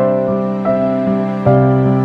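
Gentle instrumental background music, with new notes struck about every half second to a second.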